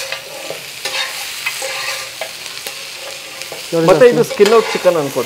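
A metal spatula stirs and scrapes chicken pieces around a hot wok in repeated strokes, over a light sizzle of frying. About two-thirds of the way through, a loud voice comes in over the stirring.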